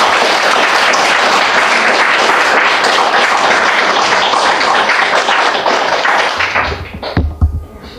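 Audience applauding: many hands clapping together in a dense patter that dies away near the end.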